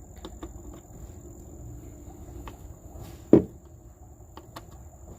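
Tools and metal parts clicking lightly as a hose clamp on the air-intake and MAF adapter is tightened, with one louder knock about three seconds in. A steady high-pitched tone runs underneath.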